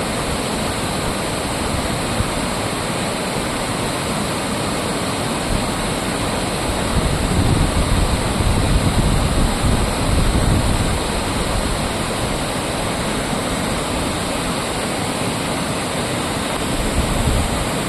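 Waterfall: steady, loud rushing of falling water. Low wind buffeting on the microphone joins it for a few seconds about seven seconds in, and again briefly near the end.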